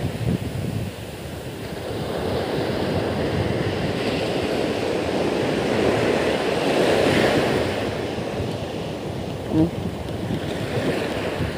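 Sea surf breaking and washing up the beach, swelling and easing, with wind buffeting the microphone.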